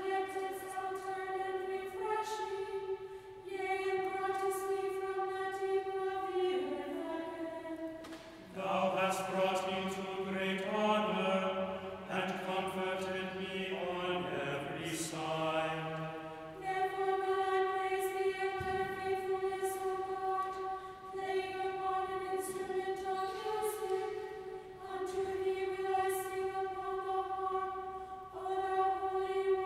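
Choir chanting a psalm in plainchant to psalm tone II. Each verse is held mostly on one reciting note and closes with a short dip in pitch. A fuller passage with lower voices comes about a third of the way through.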